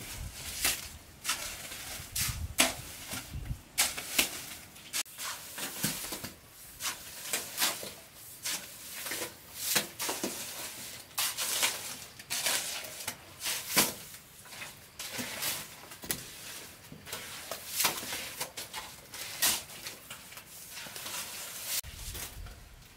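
Repeated scraping of a shovel and hoe dragging through sand and wet cement mortar as a floor is spread, one or two strokes a second.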